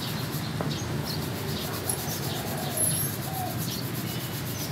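Birds chirping intermittently, short scattered calls over a steady low background hum.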